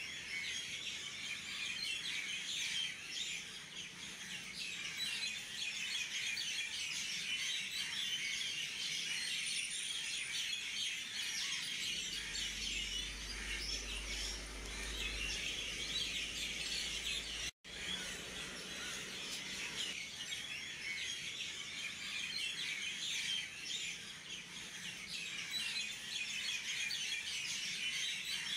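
Many small birds chirping in a dense, continuous chorus, cutting out for an instant about two-thirds of the way through.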